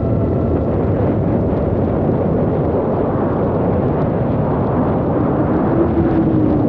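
DJI FPV drone in fast forward flight, heard from a camera mounted on the drone itself: a loud, steady rush of propeller noise and wind, with a faint motor whine that shifts in pitch about five seconds in.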